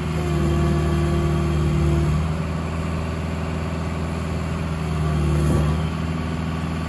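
Caterpillar 305E mini excavator's 41 hp diesel engine running steadily under the hydraulics as the arm and bucket are worked. A higher whine rides over the engine for the first couple of seconds and briefly again near the end.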